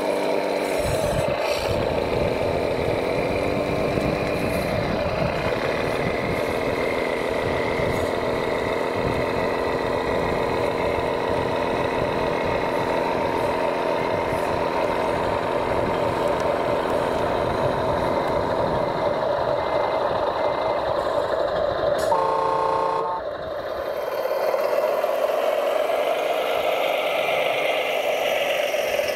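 Radio-controlled construction machines running, with a steady whine from their electric drive motors and gearboxes. About 22 seconds in there is a short horn-like beep.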